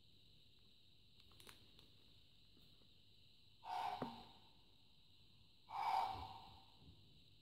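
Two short, harsh deer barks played from a children's sound book's small electronic speaker, about two seconds apart.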